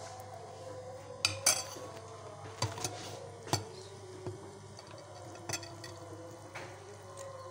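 Metal spoon clinking and scraping against an aluminium cooking pot while cooked noodles are spooned out, with about seven sharp clinks at uneven intervals over a faint steady hum.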